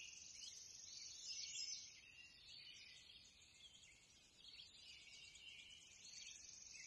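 Near silence, with faint high-pitched chirping of distant birds.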